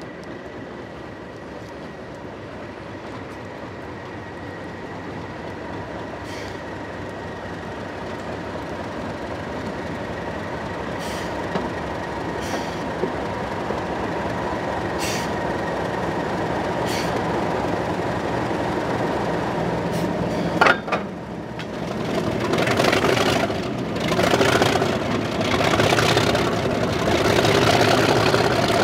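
Class 37 diesel locomotive's English Electric V12 engine drawing closer and growing steadily louder, with a steady high whistle over its running. About two-thirds through, a sudden change to the engine heard close up from the moving train, loud and surging as it works hard under power.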